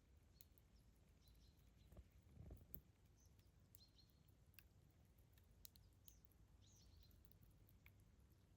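Campfire burning faintly, with scattered sharp crackles and pops of the burning wood over a low rumble that swells briefly about two seconds in.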